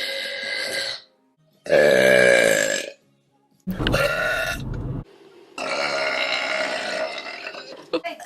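A run of burps from different women, cut one after another: about four separate belches, the loudest about two seconds in.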